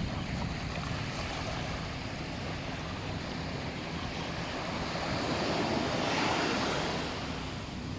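Sea waves washing onto a sandy beach, with one wave swelling louder about six seconds in, and wind buffeting the microphone.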